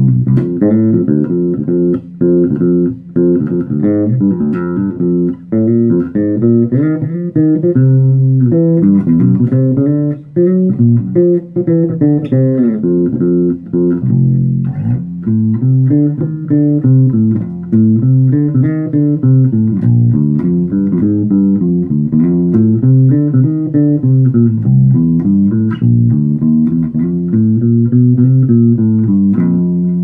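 Electric bass played solo through an Ashdown MAG 300 amp and speaker cabinet whose internal speaker wiring has been replaced with TurboTone twisted, soldered cable. A continuous bass line of plucked notes comes in suddenly at the start, with busy runs at first and then a repeating phrase.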